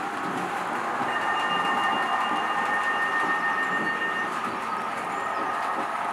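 Model railway train running on the layout's track: a steady rumble of wheels on rail, with a thin, even electric-motor whine from about a second in that stops a few seconds later.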